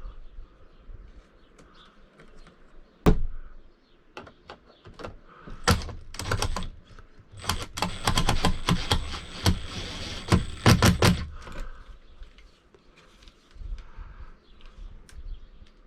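Handling and screwing up a plastic cover panel on an RV air-conditioner ceiling assembly: scattered knocks and clicks, one sharp knock about three seconds in, and a few seconds of dense rattling clicks in the middle.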